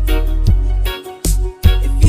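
Reggae music with a heavy bass line, sharp drum hits and off-beat chords, and a brief drop in the bass about a second in.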